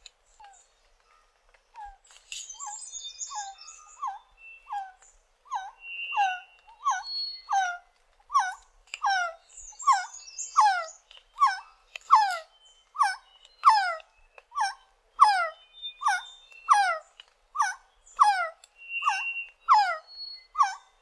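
Resplendent quetzal calling: a long series of short, downslurred whistled notes, a little more than one per second, faint at first and growing louder within a few seconds. Fainter, higher chirps of other birds come and go behind it.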